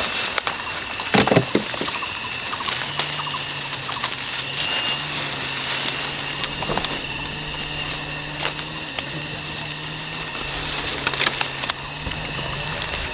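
Leaves rustling and twigs snapping in short clicks as green plums are plucked by hand from the branches. A low steady hum, like a distant engine, comes in about three seconds in and runs until near the end, with a thin high whine behind it.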